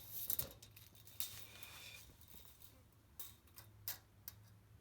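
Faint, scattered clicks and light taps, about half a dozen, over a steady low hum.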